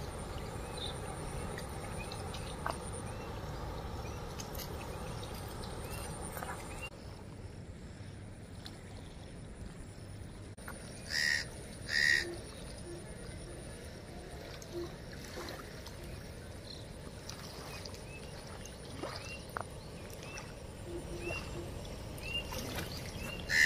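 Steady, quiet outdoor background noise with scattered faint chirps, mostly near the end, and two short loud calls about eleven and twelve seconds in.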